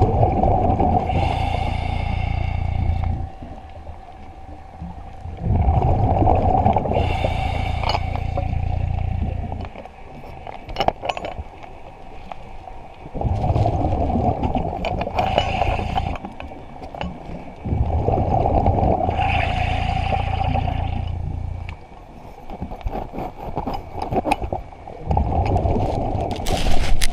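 Scuba diver breathing underwater through a regulator: five long bursts of exhaled bubbles, each about three to four seconds, with quieter gaps between breaths.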